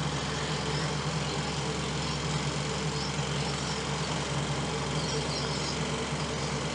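Mother cat purring steadily as her newborn kittens nurse: a low, continuous rumble with a fast flutter.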